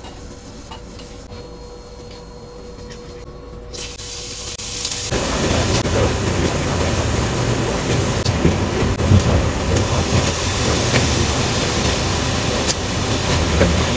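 Shrimp sizzling in a hot frying pan, a steady loud hiss with crackles and pops, starting about four to five seconds in after a quiet stretch.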